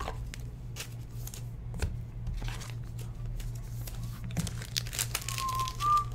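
Trading cards, their plastic sleeves and foil pack wrapping being handled, crinkling and rustling with scattered light clicks over a steady low electrical hum. Near the end a person starts whistling a tune.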